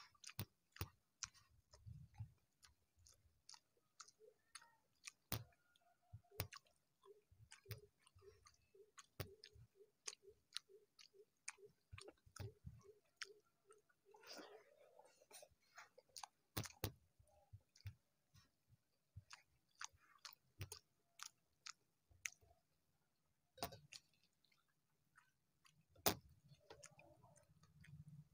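Close-up mouth sounds of a person eating rice and curry by hand: soft chewing with many short, wet clicks and lip smacks. For several seconds in the middle, a soft pulsing tone repeats about three times a second.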